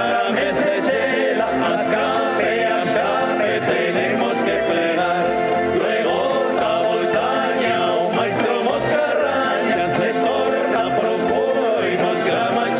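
Folk group playing live: several men singing together in chorus over acoustic guitars and an upright bass, with a steady bass pulse underneath.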